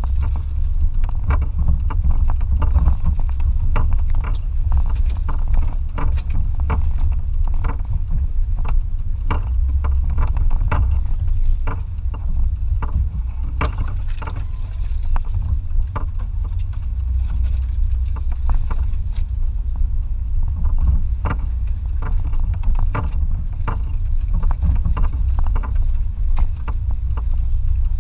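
2004 Toyota Tacoma TRD Off-Road pickup on the move: a loud, steady low rumble with frequent sharp knocks and rattles.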